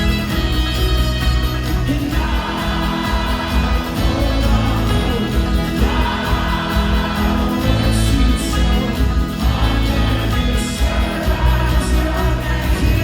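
Live folk-rock band playing loud, with a steady beat and strong bass, and wordless voices singing over it.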